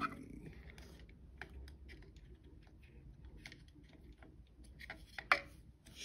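Irregular light clicks and taps of hands handling an electric scooter's clear plastic GPS head unit.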